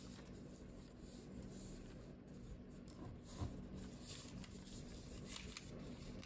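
Paper being folded and creased by hand: faint rustling and rubbing as fingers press and smooth the folds, with one soft knock about three and a half seconds in. A steady low hum runs underneath.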